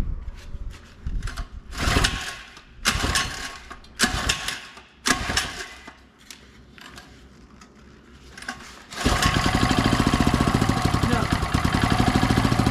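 Small 89cc single-cylinder mini bike engine being pull-started, on a piston whose crack has been patched with epoxy. Several quick yanks of the recoil starter in the first five seconds fail to catch. About nine seconds in it fires and runs with a rapid, even firing beat.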